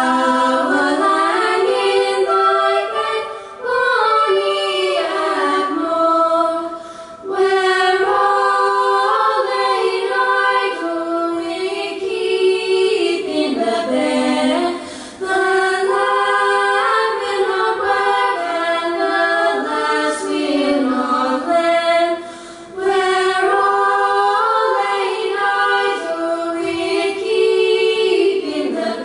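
A group of girls singing together in long sung phrases, with short breaks between phrases; the voices carry the music, with no drums or bass heard.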